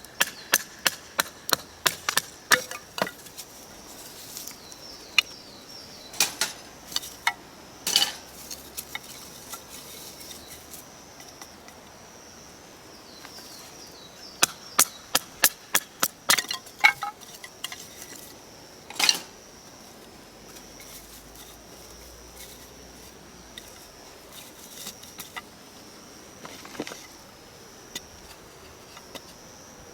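A camp knife chopping and splitting wood: quick runs of sharp wooden knocks, about four or five a second, broken by pauses and a few single heavier strikes, with a steady high-pitched tone underneath.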